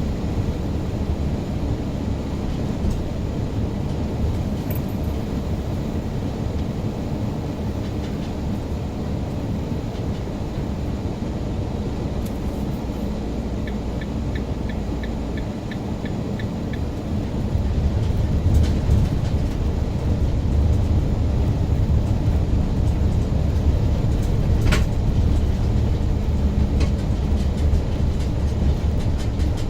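Steady low rumble of a car driving, road and engine noise that grows louder a little past halfway. A short run of quick, light ticks, about four a second, near the middle, and one sharp click later.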